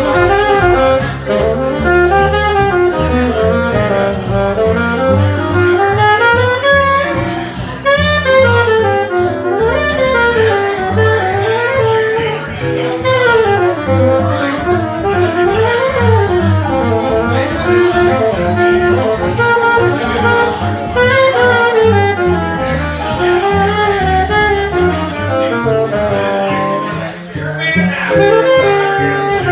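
Jazz group playing, a saxophone soloing in quick up-and-down runs over a stepping bass line.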